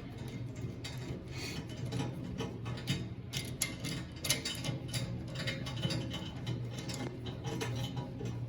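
Socket wrench ratcheting in short, irregular clicks while a wire rope clamp nut is tightened, over quiet background music.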